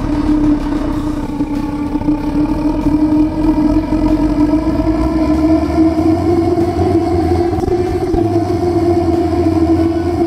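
Homemade propane burner firing into a steam boiler's fire tube: a steady roar carrying a strong humming tone, its pitch creeping slightly upward after about five seconds. The gas is being opened gradually so that the liquid-propane vaporizer can warm up.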